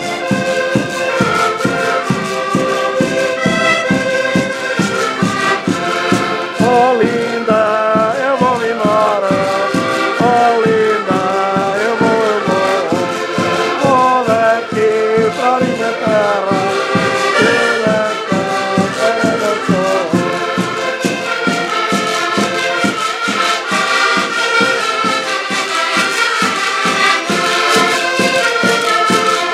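Several diatonic button accordions playing a Portuguese folk tune together, with a bass drum beating a steady rhythm.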